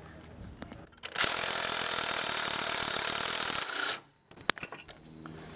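Cordless impact wrench with an 18 mm deep socket on an extension running on a bumper nut, starting about a second in, hammering steadily for nearly three seconds and stopping abruptly, followed by a couple of light metallic clicks.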